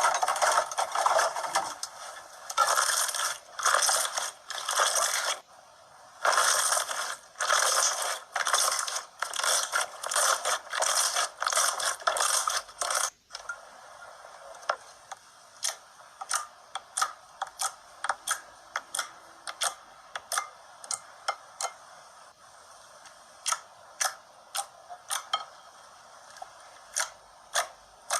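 Slime being played with by hand: a run of crackling, squishing bursts, then from about halfway sharp separate clicks and pops, a few a second.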